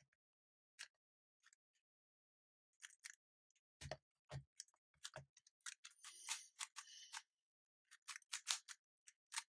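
Plastic speed cube being turned one-handed: quick, irregular clicks and clacks of the layers snapping round, coming in denser runs in the second half.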